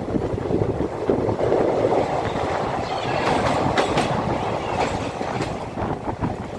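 Train running along the rails, its wheels clattering over the track. The noise gets louder about a second in as the train enters a short tunnel, with sharp clicks while inside, and falls away near the end as it comes back out into the open.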